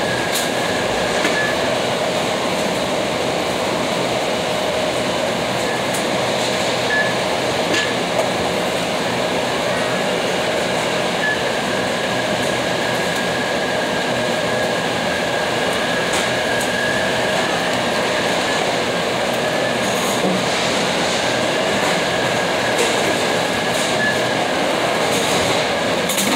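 Steady loud mechanical running noise with a thin high whine that comes and goes and a few light clicks.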